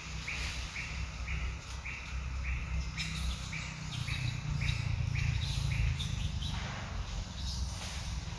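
A short chirping call repeated evenly, about two a second, over a low steady rumble; the calling stops about five and a half seconds in, and a brief rustle follows near the end.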